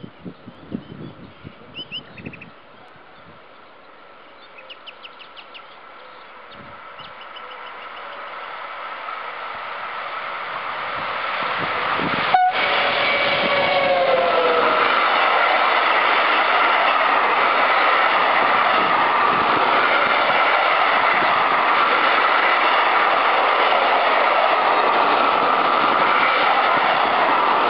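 SNCF BB 26000 'Sybic' electric locomotive and a long train of tank wagons passing: the rolling noise swells as the train approaches. About twelve seconds in, the locomotive sounds its horn as it passes, the pitch dropping as it goes by. Then the steady rolling din of the tank wagons on the rails continues.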